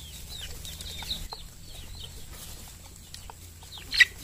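Young chickens peeping over and over in short, high, falling calls, with one loud, sharp call near the end.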